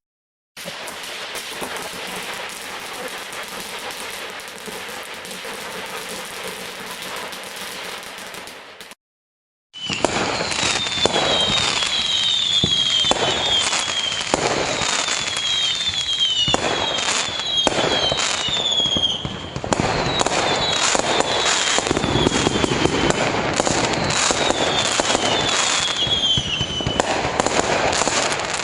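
Fireworks: a dense, steady crackling for the first several seconds, then, after a brief cut to silence, a run of sharp bangs. Clusters of short, slightly falling whistles sound among the bangs.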